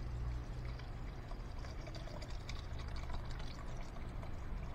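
Thinner pouring from a metal can into a plastic tub of varnish, a steady pour with faint small ticks of liquid, thinning the varnish about half and half.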